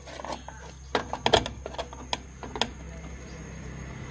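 Steel hand tool clicking and scraping against a drum brake's upper shoe return spring and shoe as the spring is being pried off, a series of sharp metallic clicks clustered about a second in and around the middle.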